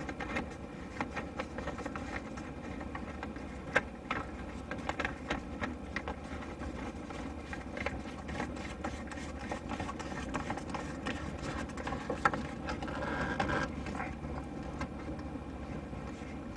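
A steady mechanical hum runs throughout, with scattered light clicks and taps from plastic drain fittings being handled and threaded together, the sharpest about four seconds in and again near twelve seconds.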